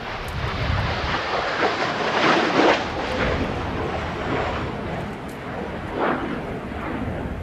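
Kawasaki T-4 jet trainer flying past, the noise of its twin turbofan engines rising to loudest two to three seconds in, easing off, then swelling briefly again about six seconds in.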